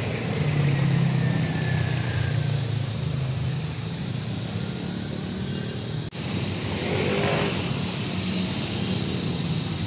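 Motor vehicle running, a steady low engine drone with road noise. The sound cuts out for an instant about six seconds in.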